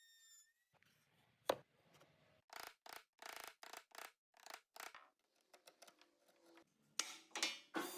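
Short scraping strokes of a hand tool on wood, about two a second, with a sharp knock about a second and a half in and two more near the end. A thin steady tone fades out in the first second.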